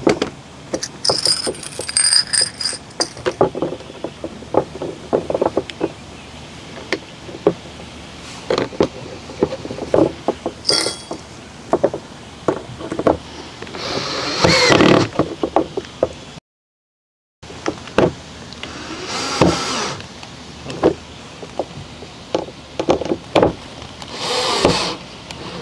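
Plastic raised-bed self-watering tray being screwed down with large screws: irregular clicks and knocks from the screws and plastic parts, with a few longer scraping rustles. The sound drops out completely for about a second just past the middle.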